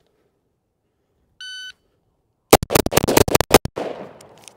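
Electronic shot-timer start beep, then six rapid rifle shots from an AR-style carbine fired in about a second, the last about two seconds after the beep, with the echo fading off the range.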